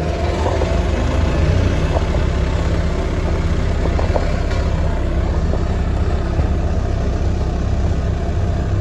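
Road roller's diesel engine running steadily with a deep, even hum, and a few faint ticks about two and four seconds in.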